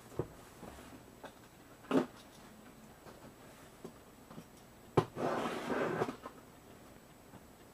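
Cardboard shipping box being handled and cut open with a utility knife: scattered light taps and a knock about two seconds in, then a sharp click and a rasping tear of packing tape and cardboard lasting about a second, about five seconds in.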